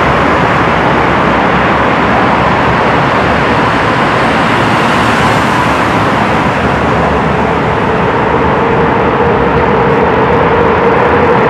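Loud, steady road-traffic noise inside a road tunnel: the continuous rush of passing cars and engines. A faint steady hum joins about halfway through.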